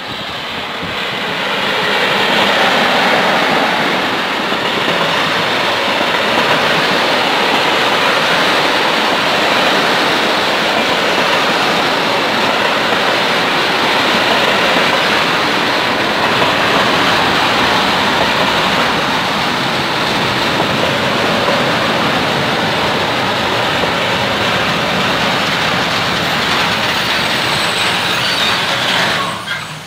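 Container freight train passing close by: the steady rolling noise of its flatcars' wheels on the rails. It swells over the first couple of seconds as the electric locomotive draws level, then falls away sharply near the end.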